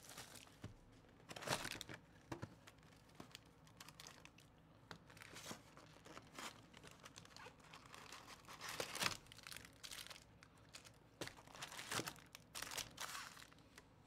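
Wrapping torn and crinkled off a cardboard box of baseball cards, then the box opened and its foil packs lifted out: quiet, intermittent tearing and crinkling rustles.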